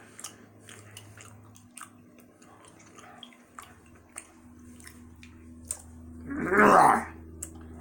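A person chewing a large mouthful of thick gummy candy, with scattered small wet, sticky mouth clicks. About six and a half seconds in comes a brief loud voiced sound from the chewer.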